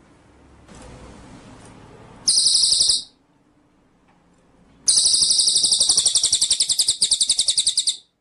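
Cililin bird singing: a short, very rapid high-pitched trill, then after a pause of about two seconds a longer trill of about three seconds, both fast and even.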